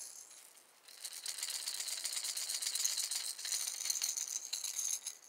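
Cotton Cordell lipless crankbait being shaken, its built-in rattles clicking in a fast, continuous, high-pitched rattle that starts about a second in and lasts about four seconds.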